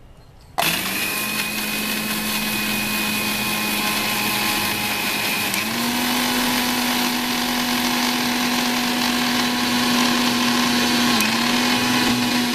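Orient Electric mixer grinder switched on and dry-grinding poppy seeds with whole chillies in its steel jar, no water added yet. The motor starts suddenly about half a second in and runs with a steady whine that steps up in pitch about five seconds in, with a brief dip near the end.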